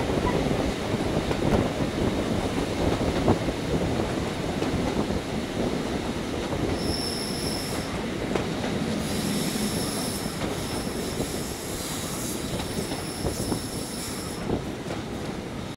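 A diesel-hauled passenger train running along the line, its wheels rumbling steadily on the rails. About seven seconds in, the wheels set up a high, thin squeal. It breaks off briefly and then returns, lasting until a second or so before the end.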